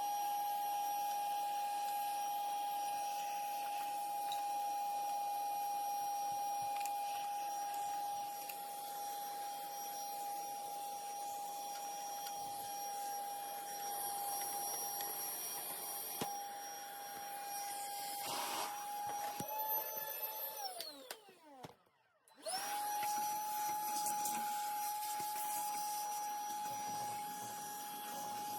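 Cordless vacuum running with a steady high motor whine, sucking dust and debris from boiler parts; about twenty seconds in it is switched off and winds down, then is switched back on and spins straight back up to speed.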